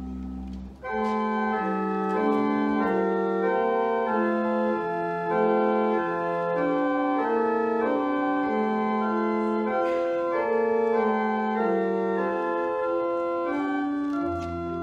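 Church organ playing slow, full chords. After a brief break about a second in, it comes back fuller, and a deep bass note sounds again near the end.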